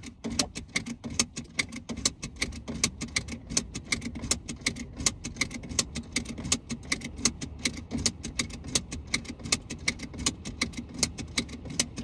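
Seat belt tongue snapped into the buckle and pulled out again and again, a rapid even run of sharp clicks at about four a second. This is the repeated latch-and-release, done about twenty times with the ignition on, that turns off the seat belt chime on a 2022 Subaru WRX.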